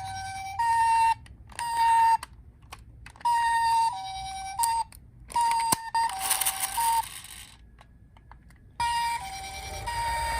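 Toy ambulance's electronic two-tone "pi-po" siren: a high and a low note alternate in short bursts that keep starting and cutting off. There is a click and a short burst of noise about six seconds in, then a pause of about a second before the siren starts again.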